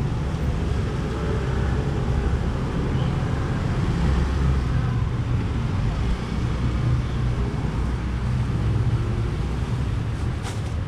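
Street traffic: a steady low rumble of vehicles on the road.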